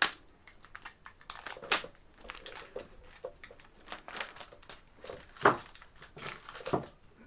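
Hands handling the display's plastic parts: irregular clicks and knocks with light crinkling. The sharpest knocks come right at the start and about five and a half seconds in.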